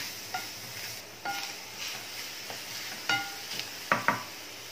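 Wooden spatula stirring and scraping grated fresh coconut and jaggery around a pan over low heat, over a soft sizzle as the jaggery melts into the coconut. A few sharper scrapes stand out, the loudest near the end.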